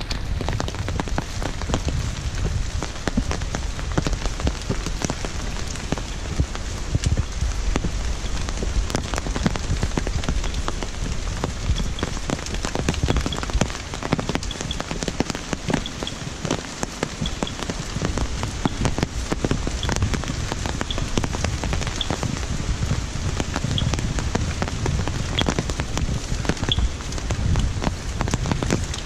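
Steady rain falling on leaves and wet stone steps, a dense patter with many separate drop hits.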